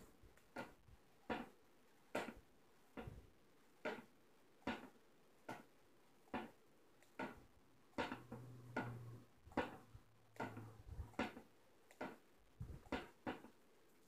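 A homemade foam-cup bell swung by hand on a pencil axle, its clapper knocking against the cup: a steady run of light clicks, about one every 0.8 seconds.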